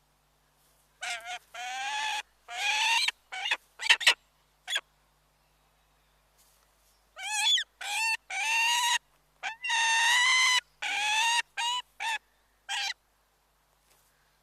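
A large bird giving a series of loud calls in two bouts, the first from about a second in and the second from about seven seconds in. The calls are short and long, each rising at the start and then held on one pitch.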